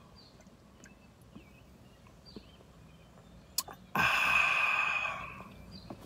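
A man drinking from a glass bottle of diet cola, with faint gulping, then a click about three and a half seconds in as the bottle leaves his lips. A long, breathy, unvoiced 'aah' of refreshment follows, fading out after about a second and a half.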